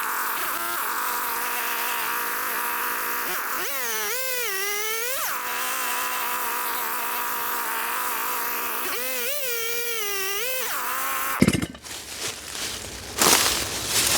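Chainsaw cutting up through a 7-inch log from beneath, running steadily. Its pitch rises and sags twice as it works under load, then it cuts off sharply about eleven seconds in, followed by knocking and rustling.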